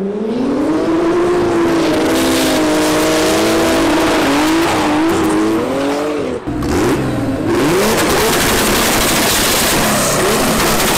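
Drift cars' engines revving hard, their pitch rising and falling as the throttle is worked through a slide, with tire squeal. After a sudden cut about six seconds in, more brief revving gives way to a steady rushing noise.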